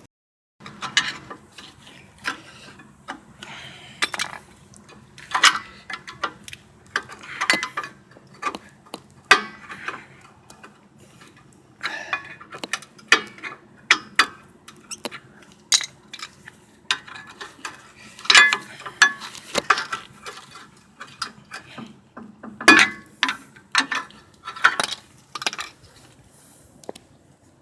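Hand tools clinking and clanking on the metal parts of a seized rear brake caliper as it is worked free, in irregular sharp metallic knocks.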